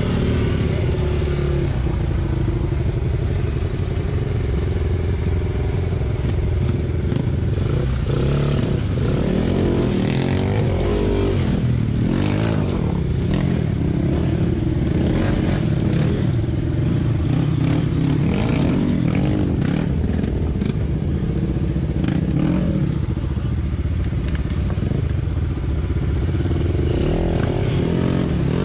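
Dirt bike engine running and revving up and down at varying speed, with scattered knocks and scrapes.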